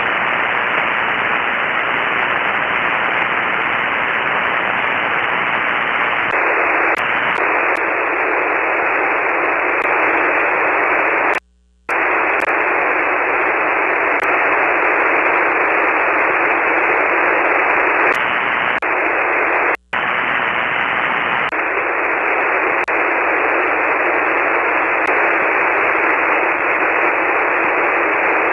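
Hiss of a ham radio receiver on 40-metre SSB, with no station transmitting: steady, loud band noise. It cuts out briefly twice, for about half a second around 11 seconds in and for an instant near 20 seconds, and for stretches the hiss sounds thinner, its low end gone.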